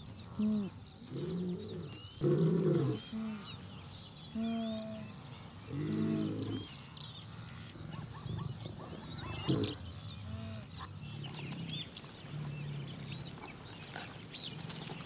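A wildebeest herd calling: a series of short, low calls, most of them in the first seven seconds, over steady bird chirping.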